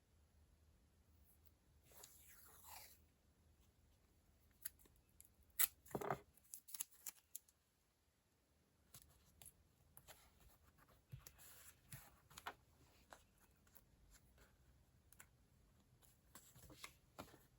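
Quiet desk sounds of paper stationery being handled: a short cutting or peeling scrape about two seconds in, then a run of light clicks and taps, the loudest about six seconds in, and scattered soft ticks.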